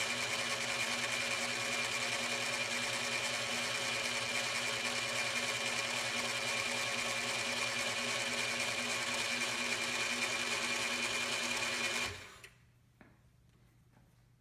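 Cowells 90 ME lathe running with no load in back gear, its train of ten steel gears for the back gear and the auto traverse giving a steady, somewhat noisy whine. The sound cuts off abruptly near the end, leaving only a faint hum.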